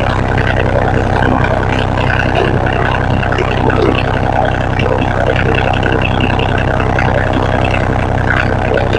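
Kioti CX2510 compact tractor's three-cylinder diesel engine running steadily.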